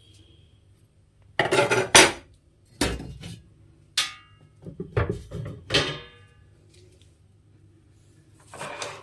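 Metal clattering and knocks, several separate strikes with a brief ringing after some, as the sheet-metal cover of an Ahuja SSA 250M amplifier is taken off and handled.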